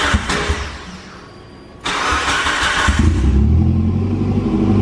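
Mitsubishi Lancer Evolution V's turbocharged four-cylinder being started: the starter cranks, and the engine fires about three seconds in and settles into a steady, deep idle. It is running with the muffler chopped off, and it is not that loud.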